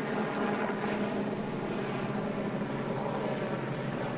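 A steady engine drone holding one pitch throughout.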